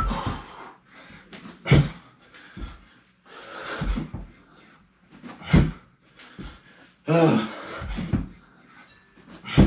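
A man breathing hard through a round of burpees, with irregular heavy exhales and short grunts, and dull thuds as he drops to and springs off the floor. The loudest thud comes near the end.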